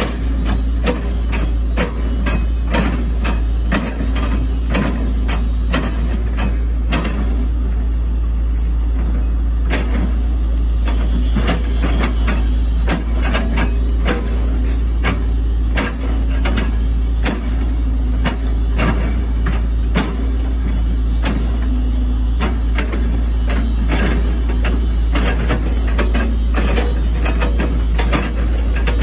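Hitachi ZX110 MF excavator's diesel engine running steadily under load, with many irregular knocks and cracks as the bucket chops through an oil palm trunk.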